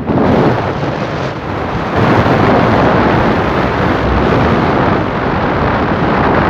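Wind rushing and buffeting over a handheld phone's microphone on a moving motorcycle, a loud, even rumble and hiss that drowns out the engine and road noise beneath it.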